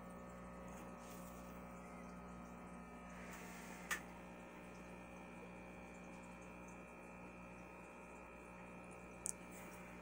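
Steady low electrical hum of aquarium equipment. Two faint, sharp ticks cut through it, one about four seconds in and one near the end.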